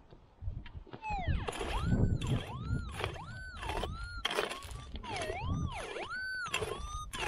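A steel pick digging into stony soil with heavy thuds, while the QED metal detector lying beside the hole gives a string of warbling tones that rise and fall in pitch, one or two a second, as the pick swings back and forth near its coil.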